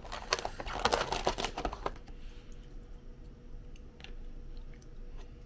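Typing on a computer keyboard: a quick run of key clicks for about two seconds, then only a few scattered clicks over a faint steady hum.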